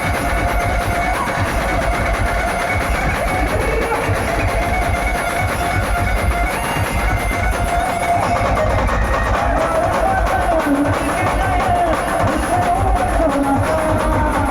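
Brass band playing an instrumental passage: a wavering lead melody over a steady drum beat, the melody growing more prominent about halfway through.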